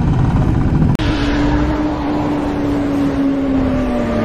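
Royal Enfield Classic 350 riding at speed, its engine rumble mixed with wind noise, cut off suddenly about a second in. Then a different engine note takes over, holding one pitch that slowly falls.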